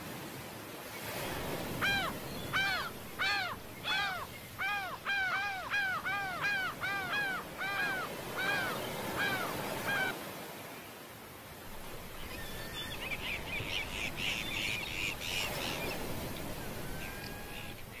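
A gull calling a long run of loud, clear, arched notes, about two a second, for some eight seconds, over the steady wash of surf breaking below. A few seconds later comes a quicker, higher chatter.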